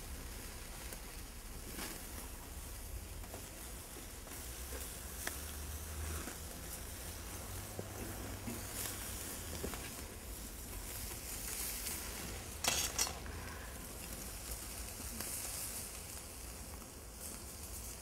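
Pork spare ribs sizzling and crackling on a charcoal grill as they are basted with barbecue sauce, with one brief louder hiss about two-thirds of the way through.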